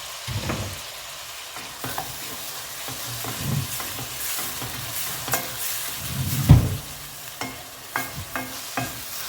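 Chopped onion sizzling in hot oil in a pan as it is stirred, with a steady frying hiss and a series of knocks and scrapes of the spoon against the pan, the loudest thump about six and a half seconds in. This is the vegetable base of a Bolognese sauce starting to fry over a lowered flame.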